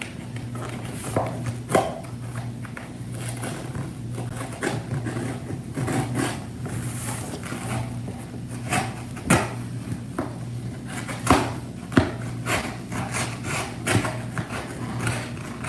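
A mailed package being opened and handled by hand: scattered clicks, crinkles and knocks of packaging, over a steady low hum.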